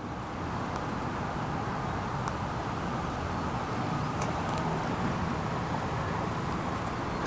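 Steady road traffic noise, with a couple of faint ticks about four seconds in.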